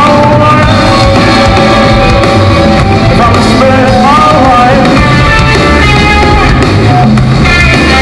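Live rock band playing loud: electric guitars over bass and drums, with held, bending lead-guitar notes weaving above an instrumental passage.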